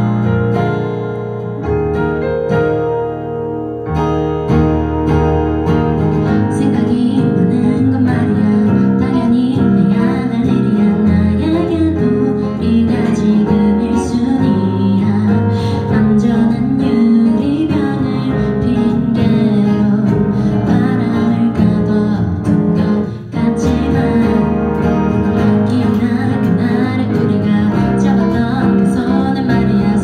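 A woman singing live to instrumental accompaniment; after a short instrumental lead-in, her voice comes in about four seconds in and carries on over the accompaniment.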